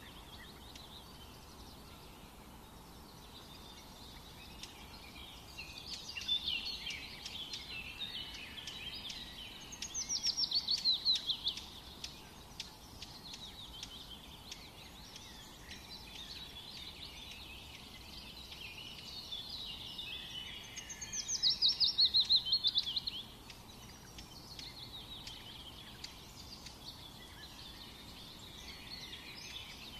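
Birds singing and chirping, with two loud rapid trills, each falling in pitch, about ten seconds in and again about twenty-one seconds in.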